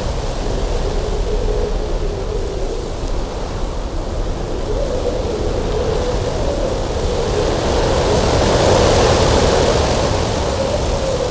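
Cold winter wind blowing steadily over a mountain pass, carrying a wavering whistling tone. A gust swells about two-thirds of the way through, bringing more hiss, then eases.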